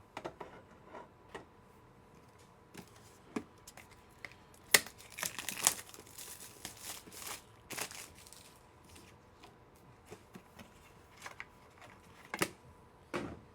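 Trading-card box packaging being opened and handled: plastic crinkling and tearing, with scattered clicks and rustles, busiest around the middle and again twice near the end.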